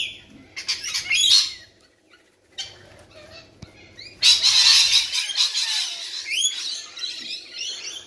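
A flock of rainbow lorikeets screeching and chattering shrilly while squabbling at a seed feeder. A sudden loud burst of screeching and wing flapping comes about halfway through as birds scramble and some take off.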